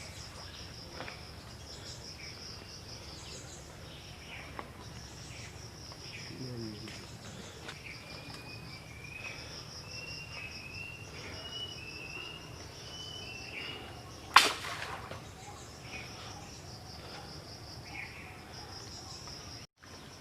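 Insects trilling in a high, pulsing buzz that stops and starts, with a bird giving a run of short chirps in the middle. A single sharp knock comes about two-thirds of the way through and is the loudest sound.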